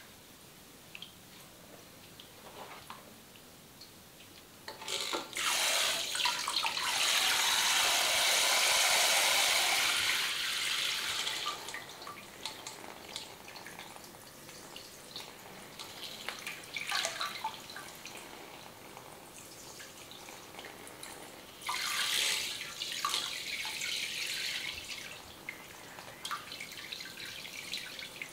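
Water from a handheld shower head spraying, in two runs: a long one starting about five seconds in, and a shorter one a little past the middle. Small splashes and drips fall in between.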